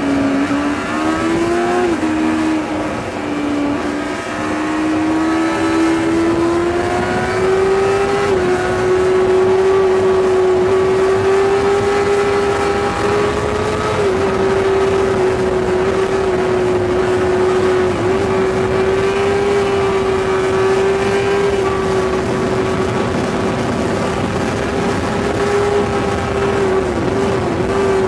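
Yamaha R6's 600 cc inline-four engine running at high revs, heard on board the bike at speed. Its pitch rises over the first several seconds, then holds high and steady, with a few brief dips later on.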